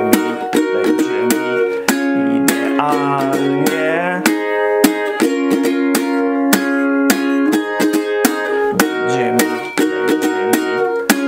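Ukulele capoed at the first fret, strummed in a fast strumming pattern through a chord sequence: a bar of D minor, then C to F, G to A minor, and C to G, with an even run of strokes.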